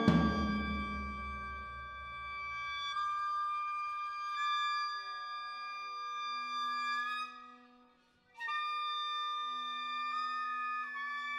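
Contemporary chamber music: clarinet, flute and bowed strings hold long, high sustained notes. A low percussion stroke rings out at the start and dies away over a few seconds; about eight seconds in the sound fades to a brief silence before the held notes come back in.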